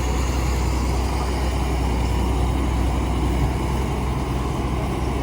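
Heavy diesel tractor engine running steadily, a constant low drone.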